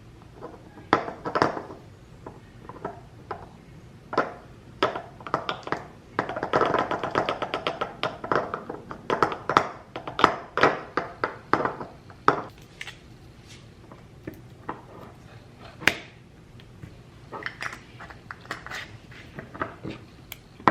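Spice jars and their lids being handled on a counter: a long run of separate knocks and clinks, with a couple of seconds of rapid fine rattling about a third of the way in.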